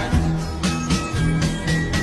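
Early-1960s pop recording: bass and guitar over a steady drum beat.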